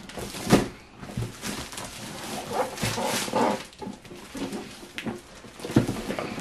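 Clear plastic wrapping crinkling and rustling as a cardboard router box is pulled and shifted inside it, with a sharp knock of the box about half a second in.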